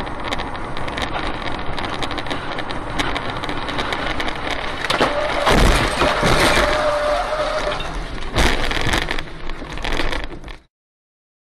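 Car on the road with steady road noise, then a crash: a heavy impact about five and a half seconds in, a steady tone held for about two seconds, and a second impact near eight and a half seconds. The sound then cuts off abruptly near the end.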